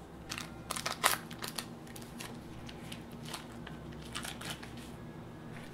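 Foil wrappers crinkling, with light clicks and scrapes of a utensil against a stainless steel mixing bowl, as cream cheese and butter are unwrapped and scraped into it. A low steady hum runs underneath.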